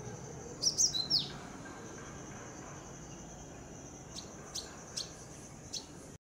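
A sunbird calling: a quick cluster of sharp, high, falling chirps about a second in, then four single short chirps spaced out near the end. A faint steady high tone sits underneath, and the sound cuts off abruptly just before the end.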